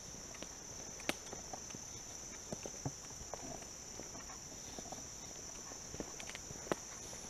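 Footsteps on a dirt woodland trail, irregular steps with a few sharper clicks, the sharpest about a second in. Behind them runs a steady, high-pitched insect chorus.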